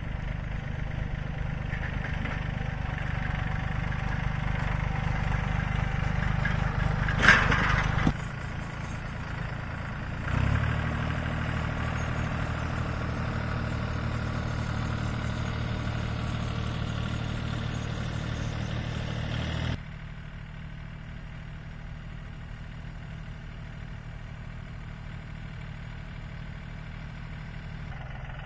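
Small red compact tractor engine running steadily under way, with a short loud knock about seven seconds in. The engine sound changes abruptly a few times and is quieter after about twenty seconds.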